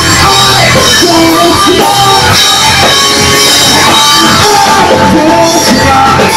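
Live rock band playing loud: electric guitars and drums with a singer's vocal over them.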